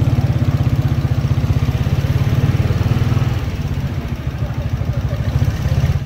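Motorcycle engine running steadily with a rapid, even low putter, easing off slightly in the middle and picking up again near the end.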